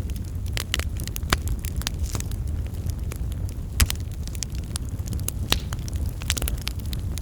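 Wood fire crackling in a fireplace: irregular sharp pops and snaps over a steady low rumble of the flames, with one louder pop near the middle.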